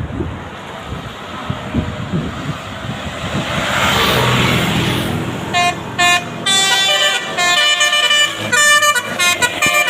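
A passing bus sounds its basuri musical air horn, playing a fast tune of short horn notes that jump between pitches through the second half. Before it, rushing road noise from a passing vehicle builds to a peak about four seconds in.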